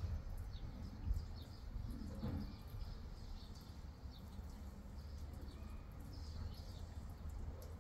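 Scattered short, high bird chirps, faint over a steady low background rumble.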